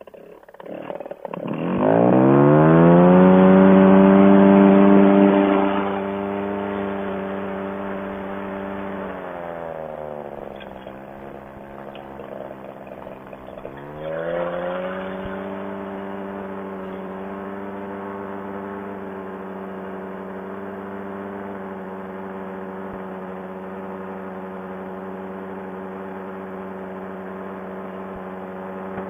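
Fresh Breeze Monster paramotor's two-stroke engine, running with its 160 main jet refitted, revving sharply up to full power about a second in. It eases back and drops to a low idle around ten seconds in, then throttles up again about four seconds later and holds a steady climb power.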